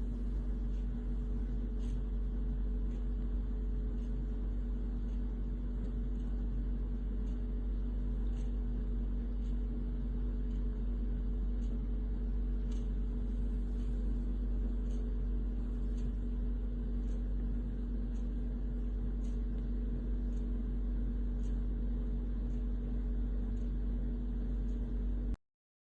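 A steady machine-like hum with a deep low drone and two constant tones, with faint irregular ticks over it. It cuts off abruptly near the end.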